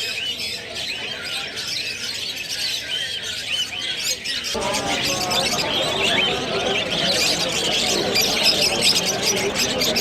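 Many small caged birds chirping and squawking together, a dense twittering of short chirps. About halfway through, the sound grows fuller and a little louder.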